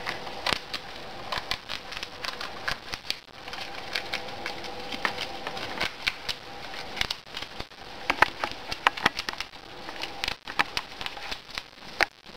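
A pet rodent gnawing and crunching hard food held in its front paws: a run of irregular sharp cracks and crackles, some of them loud.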